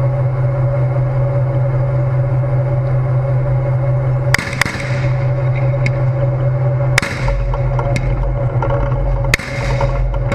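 Tank engine running with a steady low drone, close to the turret. Three sharp bangs of battle fire cut through it, about two and a half seconds apart, each ringing out briefly.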